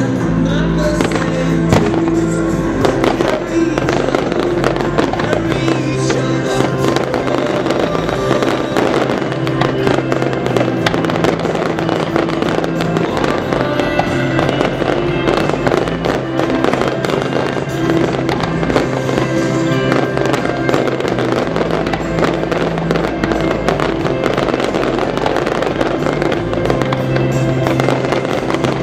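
Fireworks display: frequent bangs and crackles from bursting aerial shells, heard over loud music with sustained notes.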